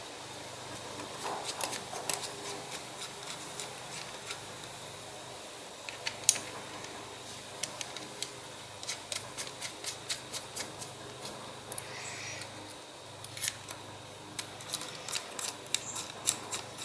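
Small clicks and taps of carburetor parts and hand tools being handled, with a sharper knock about six seconds in and quick runs of clicks, two or three a second, in the second half.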